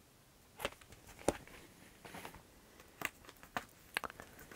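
Cardboard laserdisc jackets being handled and shuffled: a series of short taps and rustles, about half a dozen spread irregularly.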